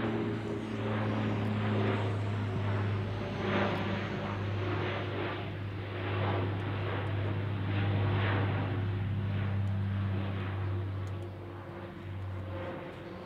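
Alenia C-27J Spartan's twin Rolls-Royce AE 2100 turboprops with six-bladed propellers, flying overhead: a steady low propeller hum with a rushing noise that pulses and swells. The low hum drops out near the end.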